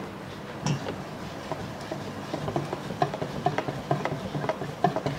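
Wire balloon whisk stirring chocolate cake batter by hand in a stainless steel bowl, its wires tapping the bowl in quick, irregular clicks.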